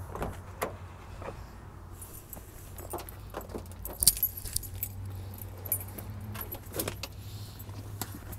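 Keys jangling in hand, with scattered knocks and clicks from footsteps and handling, over a steady low rumble.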